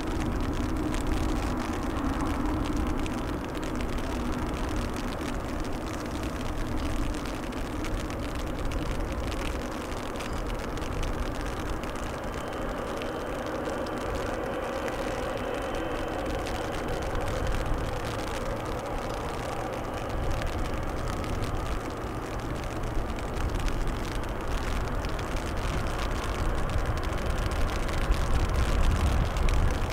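Boeing 777F's twin GE90 jet engines at taxi power as the freighter rolls slowly along the taxiway: a steady jet whine and rush, with a faint high tone briefly midway, growing a little louder near the end as the aircraft turns towards the listener.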